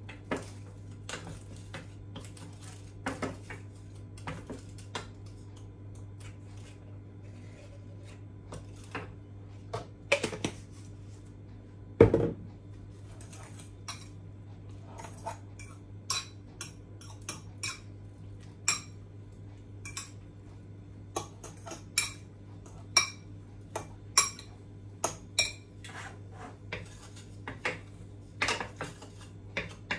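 Metal spoon clinking and scraping against a stainless steel pan and a bowl: scattered light clinks with one louder knock about twelve seconds in, then more frequent ringing clinks in the second half, over a steady low hum.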